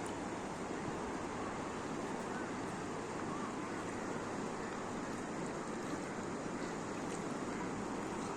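River water rushing in a steady, unbroken flow.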